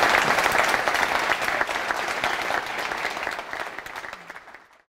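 Audience applauding, many hands clapping at once, slowly fading away and stopping just before the end.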